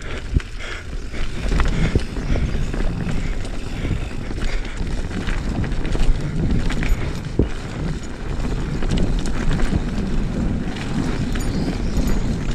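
Mountain bike rolling along a dirt cross-country trail: a continuous low rumble of tyres on dirt, with frequent clicks and knocks from the bike over bumps.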